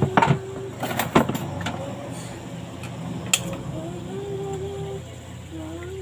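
Kitchen handling sounds at a wok of corned beef and egg on a gas stove: a few sharp clicks and knocks in the first second and a half and one more near the middle, over a steady low hum, with a faint wavering tone coming and going.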